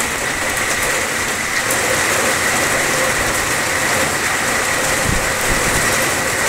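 Heavy rain pouring down steadily onto a swimming pool and a concrete patio.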